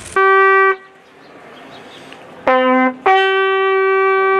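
Brass bugle sounding a call: a short note, a lower short note about two and a half seconds in, then the higher note held long.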